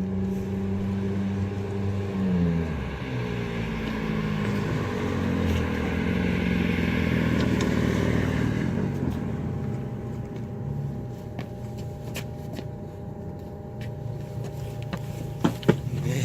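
A motor vehicle's engine running, its pitch shifting about two seconds in and the sound swelling towards the middle before easing off. A few sharp clicks near the end.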